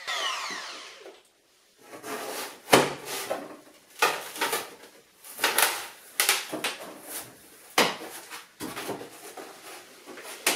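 Irregular wooden knocks and scraping as the back panel of a kitchen sink base unit is worked loose and taken out. The loudest knock comes about three seconds in.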